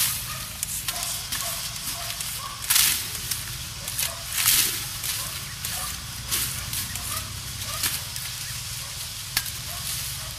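Dry sugarcane stalks and leaves rustling and crackling as cane is pulled and cut by hand. There are two louder swishes about three and four and a half seconds in, and a sharp knock near the end.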